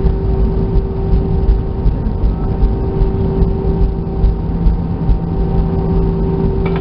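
Cabin noise of an Airbus A319 rolling on the ground after landing: a steady engine hum with a few held tones over a low, uneven rumble.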